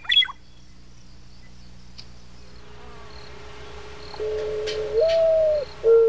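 Mourning dove cooing: about four seconds in, a soft low coo that steps up to a higher held note, the opening of its coo-OO-oo call. Faint high ticks repeat in the background.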